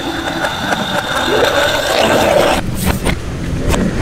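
Electric countertop blender running on watermelon and ice, played backwards. It cuts off abruptly about two and a half seconds in, followed by a few knocks.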